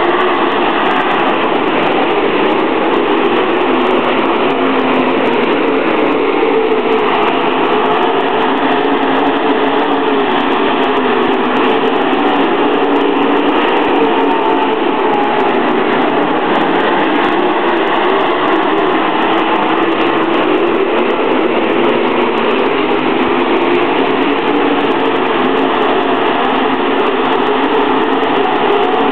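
A field of dirt late model race cars with big V8 engines running at racing speed around a dirt oval: a loud, steady, dense engine sound from several cars at once, with no break.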